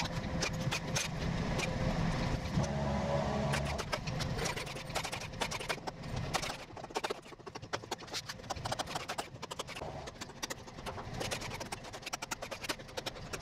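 An engine runs steadily for about the first four seconds, then stops. After that comes a quick run of sharp knocks and taps, with a framing hammer being worked on a wooden beam.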